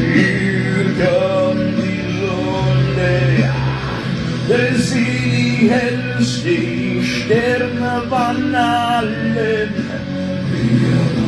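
Music with a singing voice over a sustained instrumental backing, the melody rising and falling throughout.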